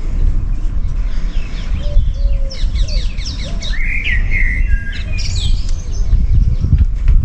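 Small birds chirping and singing, with clusters of quick high calls through the middle of the stretch, over a steady low rumble.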